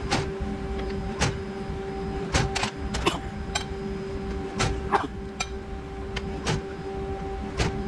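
Hydraulic press brake running with a steady hum, broken by about ten sharp metallic clanks at irregular intervals as 12-gauge steel strips are set in, pressed and taken out of its 3D-printed PLA punch and V-die.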